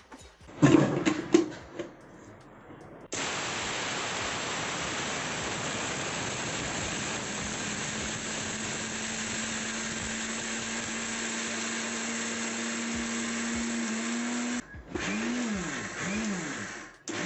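A clatter as the lid and steel jar are fitted. Then a Butterfly Hero 500 W mixer grinder starts suddenly and runs for about ten seconds grinding chana dal in its small steel jar: a steady noisy whir with a hum that rises slightly in pitch. It stops abruptly and gives two short bursts, each rising and falling in pitch as the motor spins up and coasts down.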